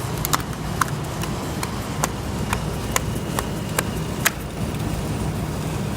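A series of sharp clicks, about two a second, that stop a little past four seconds in, as the decorative piece of a window sash is fastened back in place. A steady low rumble runs underneath.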